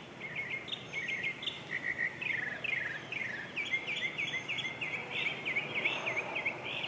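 A songbird singing a long, unbroken run of quick, varied chirping notes, some repeated several times in a row.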